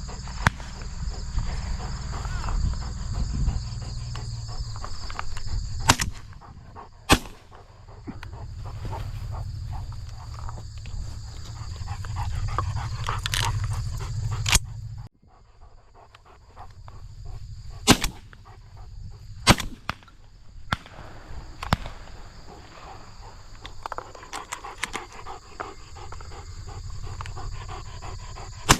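Shotgun shots at a dove shoot: sharp reports, the loudest coming in two pairs about a second apart, with fainter, more distant shots between them. Under the shots runs a steady high insect drone, and a low rumble that cuts off abruptly about halfway through.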